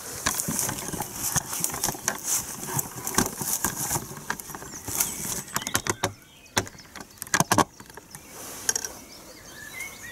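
Tent fabric rustling and tent poles clicking and knocking as the pole ends are worked into the tent's corner fittings, with a cluster of sharp clicks around six to seven and a half seconds in. Birds chirp faintly near the end.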